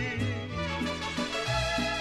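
Mariachi ranchera music. A singer's held note with vibrato ends just after the start, and the band carries on with an instrumental fill over a stepping bass line.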